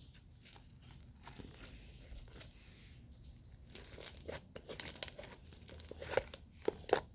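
A bag being handled and pulled at: crinkling, rustling and tearing sounds in a quick run of sharp crackles, starting about halfway through.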